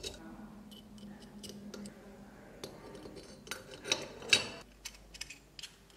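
Metal model engine parts being fitted together by hand: scattered clicks and light metallic clinks, busiest and loudest about four seconds in.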